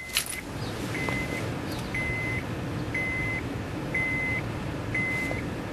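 2005 Honda Odyssey's dashboard warning chime beeping at about one beep a second, six beeps, right after the key goes into the ignition. A steady low hum runs under it.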